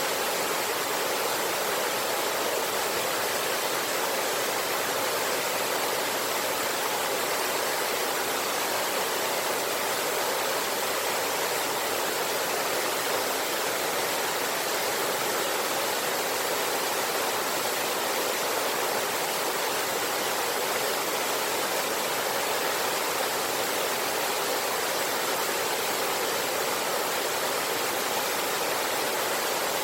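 Rushing water of a river with a waterfall, a steady, unbroken hiss that does not change.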